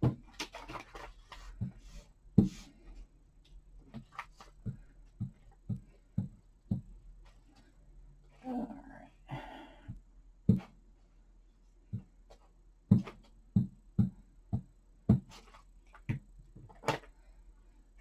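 Paper crafting at a cutting mat: a string of light taps and clicks as paper sheets are handled, pressed down and glued with a glue stick. A brief voice-like murmur with a soft rustle comes about nine seconds in.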